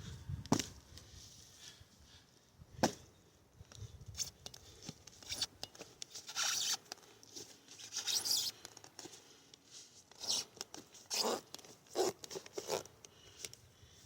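A knife blade being worked through material in short tearing, scraping strokes, with two sharp clicks in the first few seconds.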